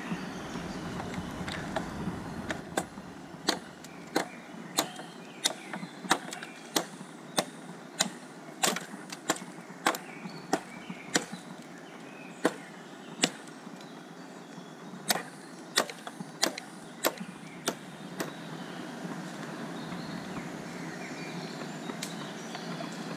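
Dry dead branches being snapped and knocked off a dead tree's pole, one at a time. There are about twenty sharp cracks, roughly one or two a second, that stop a few seconds before the end. Footsteps shuffle through the forest-floor litter near the end.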